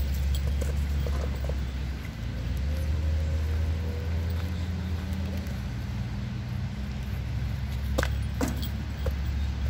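A steady low rumble throughout, with a few faint clicks, and two sharp thumps about eight seconds in, half a second apart, as a dog bumps an inflated play ball with its nose.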